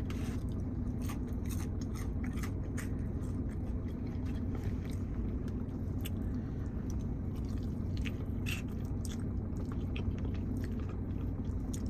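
Close-up chewing and crunching of chicken wings, scattered wet clicks and crunches, over the steady low hum of a running car.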